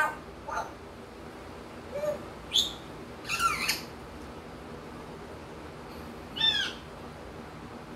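African grey parrot giving a handful of short, separate whistled calls with sliding pitch, the kind it uses to imitate wild birds; the loudest comes about six and a half seconds in.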